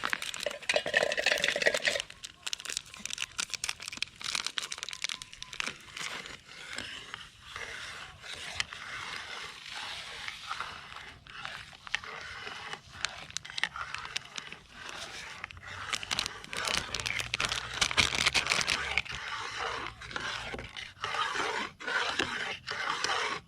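Scraping, crinkling and clicking cooking sounds as gelatin is added to a pot of boiling coconut mixture, with many irregular small clicks and scrapes.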